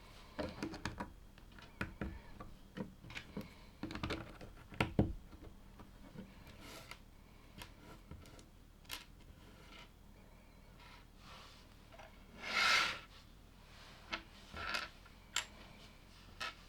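Small plastic LEGO pieces clicking and clattering as they are handled and pressed together, in irregular bursts. A short rustle comes about three-quarters of the way through.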